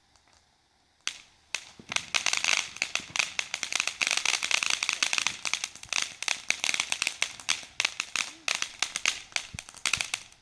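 Consumer firework going off in a dense run of rapid crackles and pops, beginning with a few separate cracks and building about a second and a half in, then stopping abruptly just before the end.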